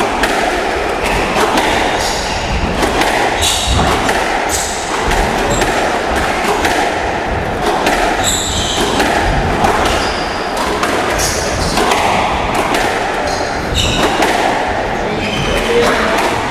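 Squash rally: the ball knocks sharply and irregularly off rackets and the court walls, with shoes squeaking briefly on the court floor several times.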